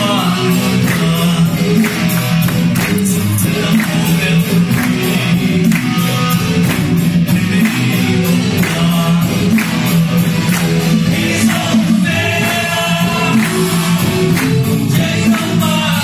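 Live rock band playing a song with a steady beat: a male lead singer over electric guitar, keyboard and drum kit.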